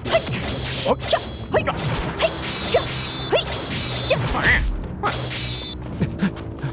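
Fight sound effects: a rapid run of swishing whooshes and sharp hits from swung fists and weapons, over a low, steady music score.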